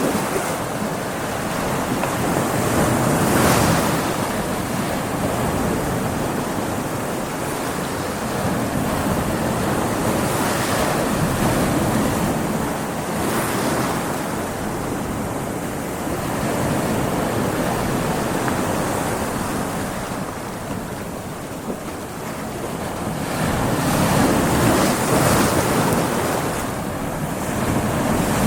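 Ocean waves breaking against rocks: a continuous rush of surf that swells and ebbs with each wave, the loudest surges coming a few seconds in and near the end.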